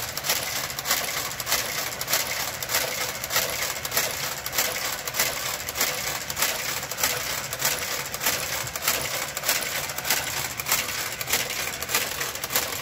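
Brother knitting machine's garter carriage travelling slowly along the needle bed, knitting a row with a steady, rapid clicking and clattering.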